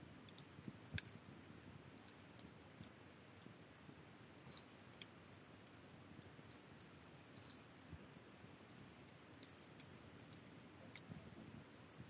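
Firewood burning in an open campfire, crackling with irregular sharp pops and snaps. The loudest snap comes about a second in, and a quick cluster of pops comes near the end.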